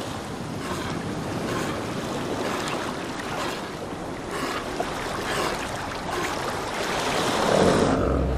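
Surf washing around rocks at the shoreline: a steady rush and splash of water that swells louder shortly before the end.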